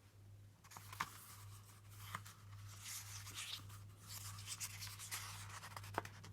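Faint rustling and scratching, with a few light clicks, over a steady low hum.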